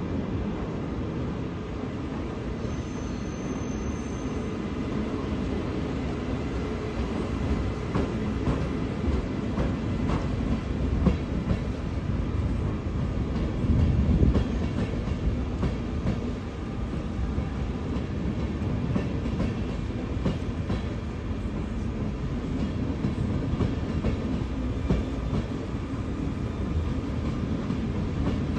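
Train hauled by two DSB Siemens Vectron electric locomotives with six Intercity coaches rolling past, running into the station. There is a steady low rumble with wheels clattering over rail joints and points, and it swells loudest about halfway through.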